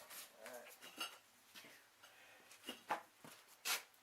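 Small metal parts being handled and rubbed during cleanup, with scattered light clinks and scrapes. A sharper knock comes near the end.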